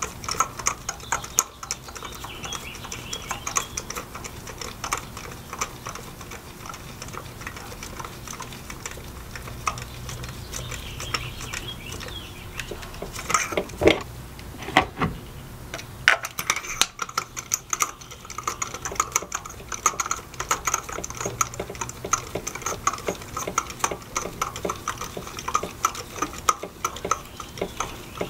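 Rapid, irregular clicking of a 3/8-inch ratchet with a spark plug socket running spark plugs down into the cylinder head, with a few louder metal knocks about halfway through.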